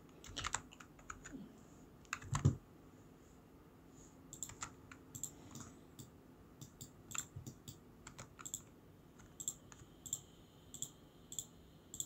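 Faint, scattered clicks of a computer keyboard and mouse as someone works at a computer, with one louder knock about two and a half seconds in.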